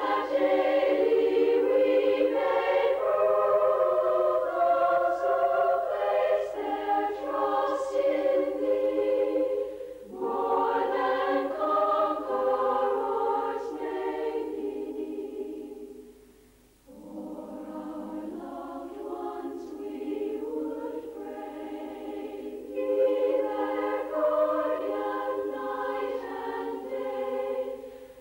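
Women's choir singing a cappella in sustained chords: a vocal-orchestra arrangement with voices standing in for instruments. The singing breaks briefly about ten seconds in, fades almost away a little past halfway, then comes back in.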